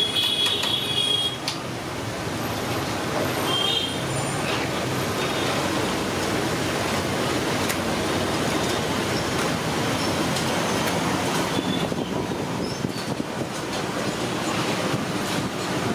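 Masala vadas deep-frying in a large kadai of hot oil, sizzling steadily, with street traffic mixed in behind. A short high squeal sounds about a second in and again around four seconds in.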